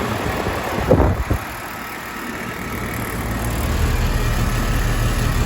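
1985 Comfortmaker 1.5-ton heat pump outdoor unit running in cooling mode: compressor and condenser fan giving a steady low hum that grows louder about three seconds in, with a brief low rumble about a second in.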